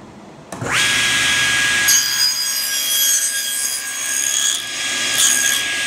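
Table saw switched on about half a second in, its motor winding up to speed with a rising whine that settles into a steady one. From about two seconds in, the blade saws through the waste on a frame piece's bridle-joint tenon held in a tenoning jig, until about four and a half seconds, with a second short cut near the end.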